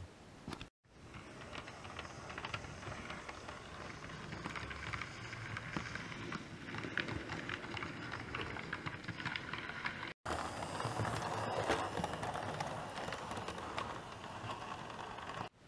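OO gauge model train running along the track: a steady running noise with frequent small clicks from the wheels over the rail joints. The sound cuts out for a moment about a second in and again near ten seconds.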